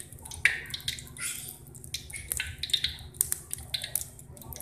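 Hot cooking oil in a wok crackling and spitting: irregular sharp pops over a faint hiss.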